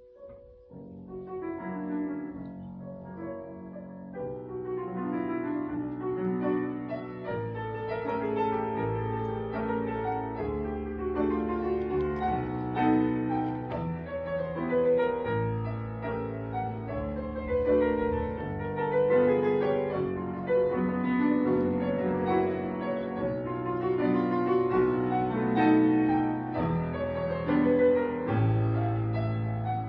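A piano playing a slow classical piece. It starts softly about a second in, adds low bass notes after about seven seconds, and grows fuller and louder.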